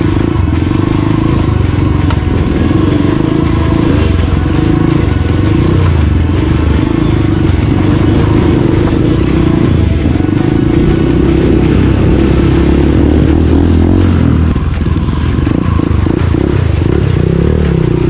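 Dirt bike engine running at a steady throttle as the bike wades through a shallow river, with water splashing against it; the engine note turns more uneven near the end.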